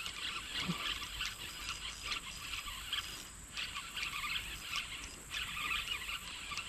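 Steady chirring of insects, a dense high, fine ticking with no change throughout.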